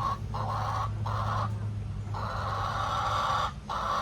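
Chickens clucking: a string of low, rough calls with short breaks between them, the longest lasting over a second, over a steady low hum.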